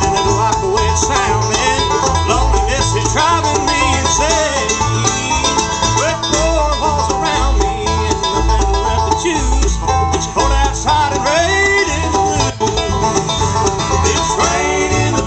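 A bluegrass band playing live: five-string banjo, mandolin, acoustic guitar and upright bass, with the bass keeping a steady beat underneath.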